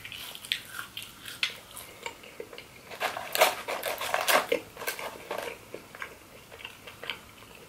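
Close-miked chewing of cheese-dipped fast food, with wet lip smacks and mouth clicks that are busiest about three seconds in.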